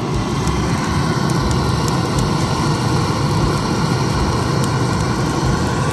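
Loud, steady rushing noise with a deep rumble underneath.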